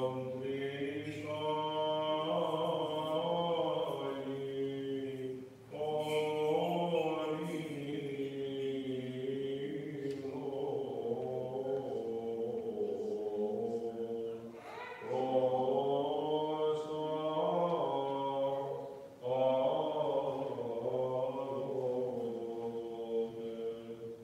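Byzantine chant: a male voice sings a liturgical hymn unaccompanied, in long held phrases with slow pitch changes and short pauses for breath between them.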